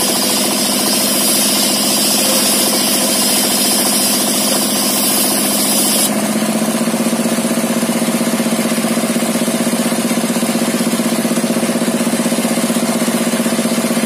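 A single-cylinder diesel engine of the dompeng type running a table circular saw. For about the first six seconds the blade rips through a wooden board with a high hiss over the engine. The cut then ends abruptly, and the engine runs on steadily with an even pulse while the blade spins free.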